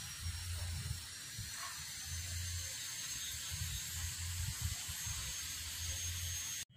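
Faint outdoor background noise: a low, uneven rumble that comes and goes, over a faint hiss and a thin, steady high whine.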